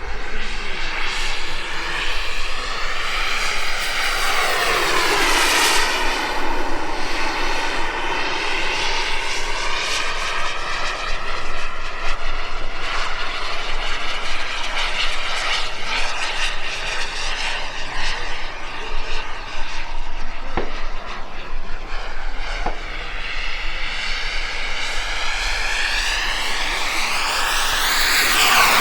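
Turbine-powered RC model jet's small gas turbine engine whining as the jet makes fast passes overhead, its pitch sweeping down and back up with each pass. The sound grows louder near the end as it comes close again.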